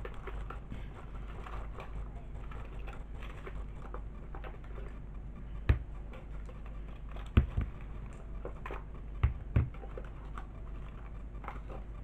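Small paint jars set down one at a time on a tabletop, giving a few sharp knocks, two of them close together near the end, between light rustling and handling of a bag.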